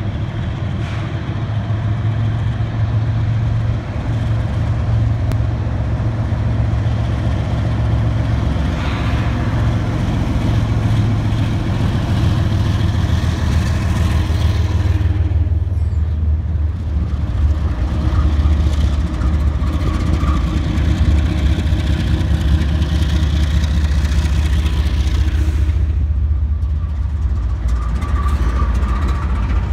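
Diesel-electric freight locomotives running close by as they pass beneath, a loud, steady low engine drone that drops in pitch about halfway through as the trailing units come through.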